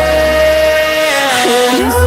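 Background pop song: a singer holds a long note over synths, the bass drops out briefly about halfway through and comes back near the end.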